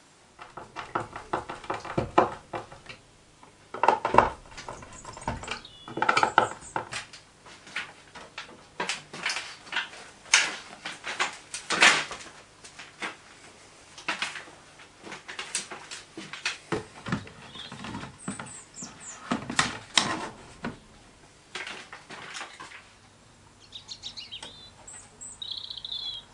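Irregular plastic clicks, knocks and rattles from handling combined smoke and carbon monoxide detectors and their plastic mounting plates, dense at first and thinning out, with a few short high chirps near the end.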